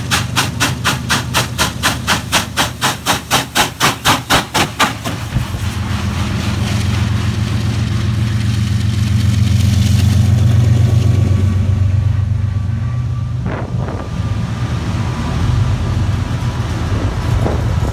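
Norfolk & Western 611, a J-class 4-8-4 steam locomotive, working hard with rapid exhaust chuffs, about four or five a second, for the first five seconds or so. The chuffing then gives way to the steady low drone of a Norfolk Southern diesel locomotive passing close beneath, loudest about ten seconds in, followed by the rumble of the passing train cars.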